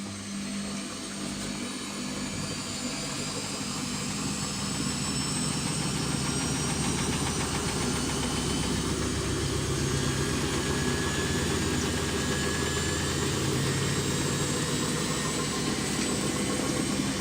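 Samsung front-loading washing machine speeding up into its spin, the drum motor's whine rising in pitch as it gets louder over the first several seconds and then running steadily at speed. This is a test run after an overhaul meant to cure the machine's knocking.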